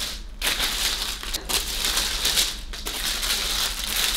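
Stiff white wrapping paper from a Chanel box crinkling and rustling as it is handled, unfolded and pulled out by hand, in a run of many small crackles with a few brief pauses.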